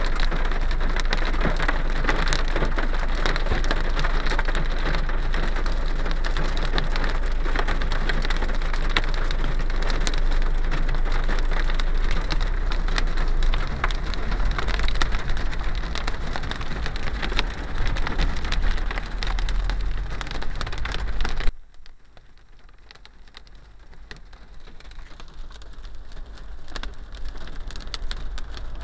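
Hail and heavy rain pelting a car's body and windscreen: a dense hiss thick with sharp ticks of hailstones striking. About three-quarters of the way through it drops suddenly to a much softer rain hiss, which then slowly builds again.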